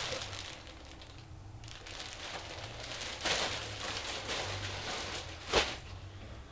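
Rustling and crinkling as shirts and their packaging are handled and unpacked, with a louder stretch about three seconds in and one sharp knock near the end.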